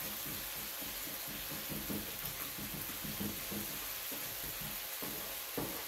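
Food sizzling steadily in a hot frying pan, with a light knock near the end.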